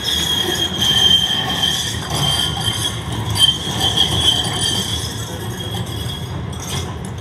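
Melbourne D2-class Siemens Combino tram's wheels squealing on a curve: a high, steady whine that swells twice and fades out near the end, over the low rumble of the moving tram.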